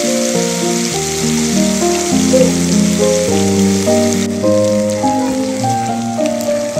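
Malai-marinated chicken legs sizzling in shallow oil in a nonstick frying pan on high heat, with background music playing a melody over it. The sizzle gets quieter about four seconds in.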